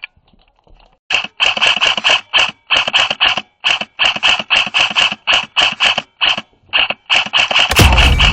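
Airsoft electric rifle firing in repeated short bursts of rapid clicks, a gearbox-driven rattle with brief pauses between bursts. A fuller, louder rush comes near the end.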